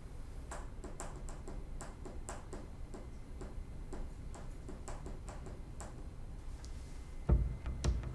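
Ticking like a clock, sharp ticks about two to three a second, a little uneven, over a faint low hum. A deep low thud comes near the end.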